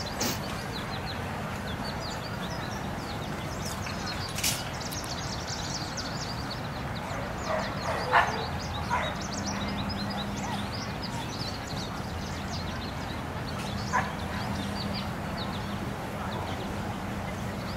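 A dog barking a few times against steady outdoor background noise, the loudest bark about eight seconds in.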